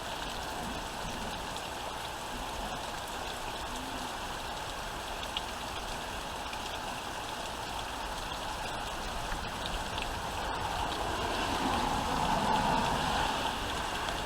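Heavy thunderstorm rain pouring down steadily, swelling louder for a couple of seconds near the end.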